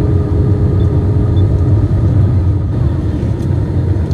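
Steady low rumble of engine and airflow noise heard inside the cabin of an Airbus A320 descending on approach to land. A faint hum fades away about half a second in.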